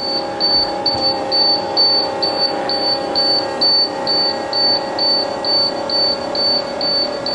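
Dashboard warning beeper of a 1996 International school bus, ignition on and engine not yet running, beeping rapidly at about two short high beeps a second over a steady droning tone.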